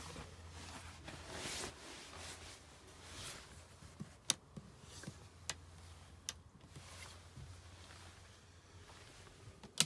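Quiet handling sounds in a small room: faint rustling with a few sharp, separate clicks, the loudest just before the end, over a low steady hum.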